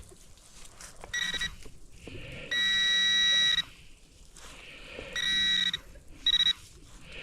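A metal-detecting pinpointer probe sounding its steady electronic alarm tone in four bursts. The longest lasts about a second, near the middle; the others are shorter, one near the end very short. Each tone signals metal close to the probe tip as it is worked over a small target in the dug soil, with soft digging and rustling between the tones.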